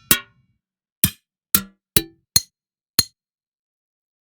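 Six short sampled percussion hits from the Keepforest Ferrum Kontakt library, played one at a time at uneven spacing over about three seconds, each dying away quickly with a brief ring.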